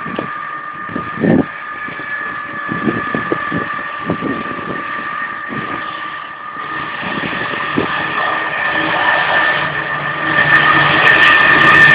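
A Freightliner Class 70 diesel locomotive approaching, its engine's steady whine growing louder over the last few seconds.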